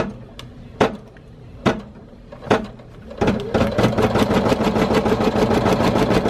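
Brother PE800 embroidery machine starting a design: a few separate knocks under a second apart, then about three seconds in the needle begins sewing the placement stitch with rapid, even strokes.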